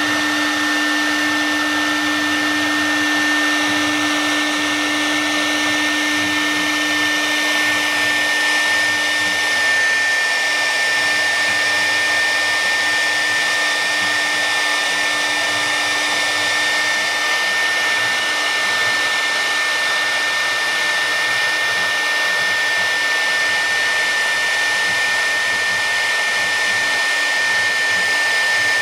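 CNC router spindle running and carving relief into a wooden board, with a steady high-pitched whine over a constant cutting hiss.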